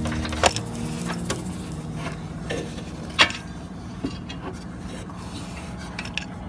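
Scattered light metallic clinks, taps and rubbing as car air-conditioning hoses and their fittings are handled, over a steady low hum.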